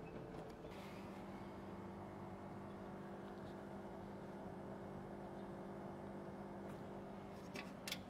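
Refrigeration unit of a Nihon Freezer explosion-proof refrigerator running with a faint, steady hum, its tones shifting slightly about a second in. A few light clicks near the end.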